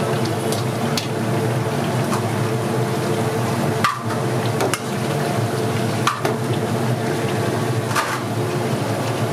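Biryani cooking: a metal utensil clinks sharply against a cooking pot a few times, over a steady hum and a sizzling, stirring noise.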